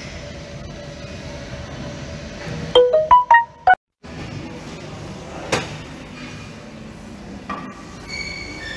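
Steady room noise with a faint held hum, then about three seconds in a quick jingle of about seven short, bright notes jumping up and down in pitch, which stops dead. After a moment of silence the room noise returns, with one sharp click a little later.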